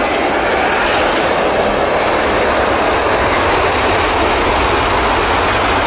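Airbus A350 airliner's twin turbofan engines at takeoff thrust during the takeoff run and lift-off: a loud, steady jet noise.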